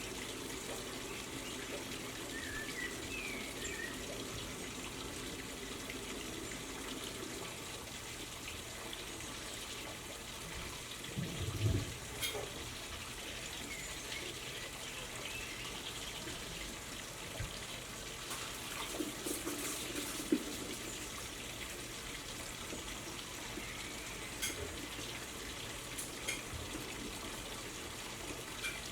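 Steady background hiss with a few faint high chirps from small garden birds, a dull thump about midway and a few light clicks.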